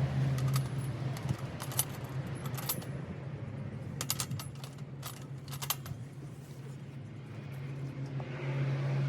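Light metallic clinks and jingles in small clusters, with a bright ringing after them, over a steady low hum.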